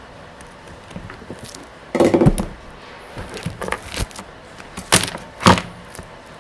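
Wires and small parts being handled on a plastic-sheeted workbench: a rustling clatter about two seconds in, a few lighter taps, then two sharp knocks near the end, the loudest of them.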